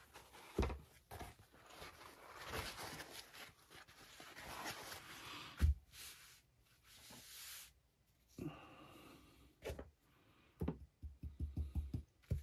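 Paper kitchen towel rustling as it is pulled off and spread out, with a few knocks of things set down on a cutting mat and a quick run of light taps near the end.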